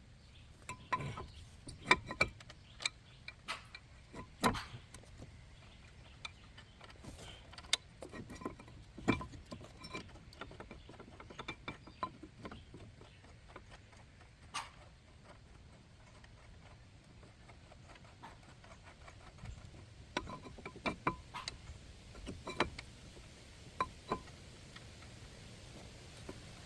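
Irregular metallic clinks, taps and knocks of tools and brake parts being handled, some with a short ring, in scattered clusters.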